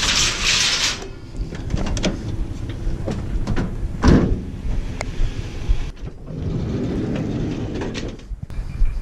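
Scrap metal being handled: knocks and scraping, with a rushing hiss at the start and one loud knock about four seconds in.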